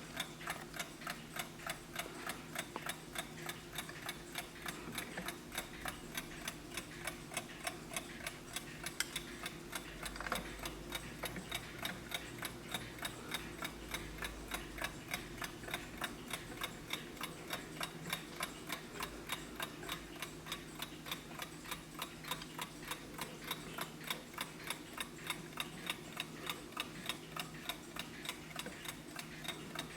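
Vintage Wehrle Sanssouci mechanical alarm clock ticking: its escapement beats a fast, even run of sharp ticks, several a second.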